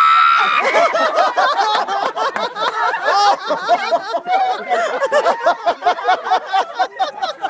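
People laughing hard and without a break, in quick repeated bursts, opening with a high-pitched squeal of laughter.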